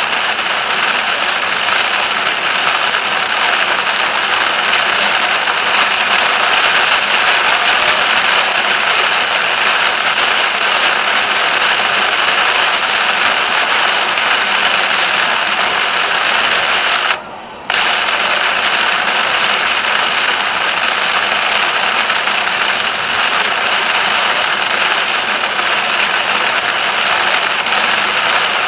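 Heavy rain pelting a car driving on a motorway: a loud, steady hiss of rain and spray. It drops out abruptly for about half a second a little past the middle, then comes back just as loud.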